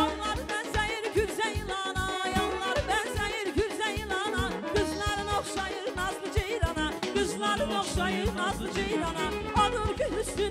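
Azerbaijani wedding dance music from a live band: a steady drum beat under an ornamented, wavering melody.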